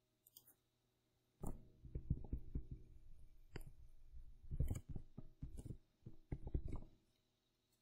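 Stylus writing on a tablet: a run of short scratching strokes and low taps from about a second and a half in until near the end, with a few sharper clicks.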